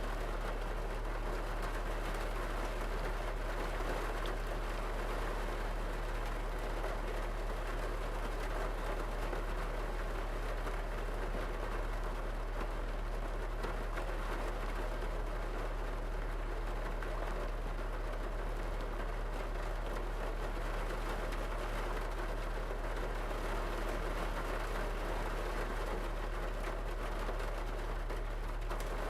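Rain falling steadily on a car's roof and windows, heard from inside the cabin, over a constant low hum.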